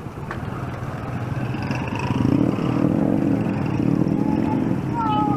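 Street traffic engine noise: a motor vehicle, such as a motorcycle, runs close by as a low rumble that grows louder about two seconds in and stays up.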